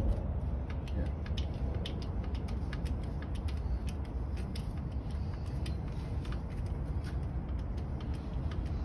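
Hand grease gun being pumped into a landing-gear grease fitting, giving irregular metallic clicks and creaks over a steady low rumble.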